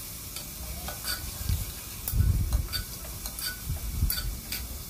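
Metal spoon stirring chopped vegetables frying in ghee in a pressure cooker: irregular clicks and scrapes of the spoon against the pot over a faint steady sizzle, with a few dull knocks, the loudest about two seconds in.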